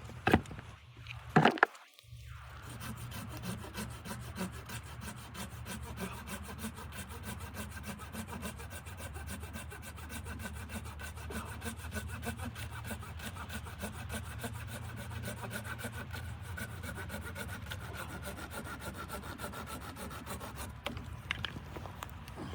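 A saw cutting through wood in a steady run of quick rasping strokes, preceded by a few sharp knocks in the first couple of seconds.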